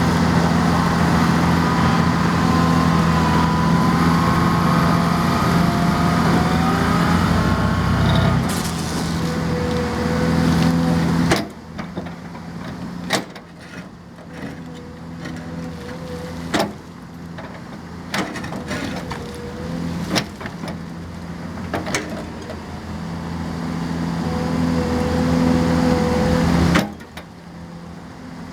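Hydraulic excavator working a vibro ripper attachment: a loud, steady machine hum that cuts off suddenly about eleven seconds in, then quieter machine noise with scattered knocks, building up again and cutting off near the end.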